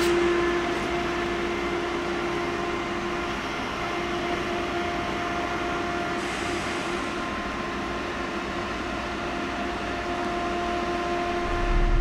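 ÖBB Railjet train moving along the station track: steady rolling noise under a few flat, unchanging electric hum tones. Music cuts in at the very end.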